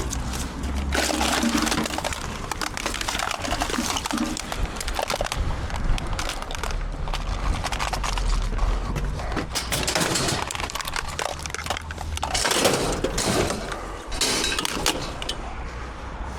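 Scrap metal and junk being handled and loaded: irregular clattering, knocks and rattles, with a steady low rumble underneath.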